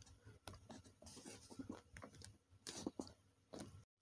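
Faint handling noises from a plastic Sony ICF-C122 clock radio being held and turned: scattered light clicks and soft rubbing, near silence between them.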